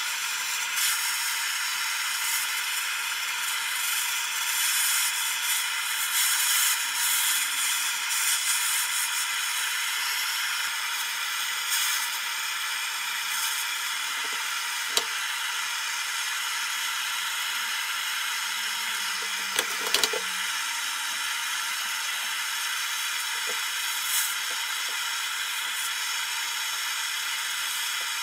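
Handheld butane gas torch on a screw-on cartridge, burning with a steady hiss. There are a couple of small knocks about halfway through.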